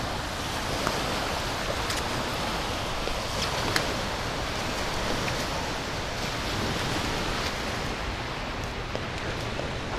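Gentle surf washing onto the sand, a steady rush of noise with a few faint clicks.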